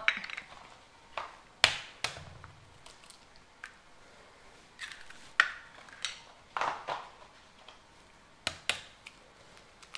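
Eggs being cracked one after another on the rim of a ceramic mixing bowl: short, sharp taps and cracks of shell every second or so, some in quick pairs.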